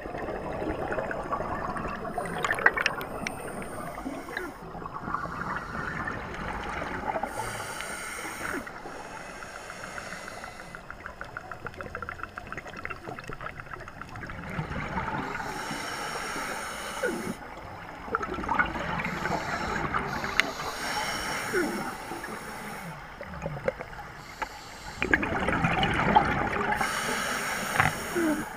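A scuba diver's regulator breathing, heard underwater: a steady hiss and gurgle, with a rush of exhaled bubbles every five to eight seconds.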